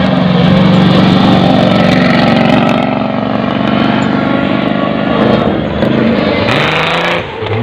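Offroad rally car's engine running at high revs as the car speeds past on a dirt track, loudest in the first few seconds. About six and a half seconds in, an engine note rises with a brief hiss.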